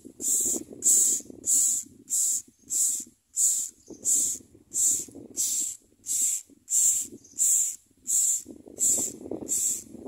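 Common myna nestlings begging with a steady series of harsh, hissing calls, about three every two seconds, while a parent is at the nest.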